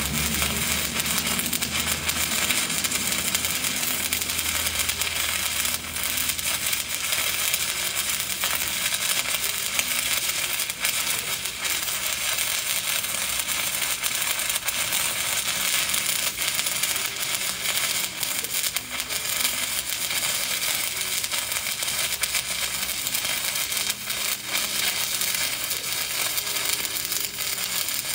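Stick (SMAW) welding arc crackling steadily as a vertical-up bead is run, on a 6010 electrode at about 85 amps.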